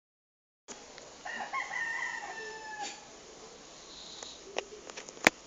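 One long animal call, about a second and a half, held with a step up in pitch, followed by a few clicks and one sharp loud click near the end.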